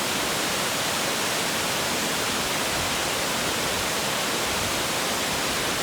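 Shirahige Falls rushing: a steady, unbroken roar of falling water.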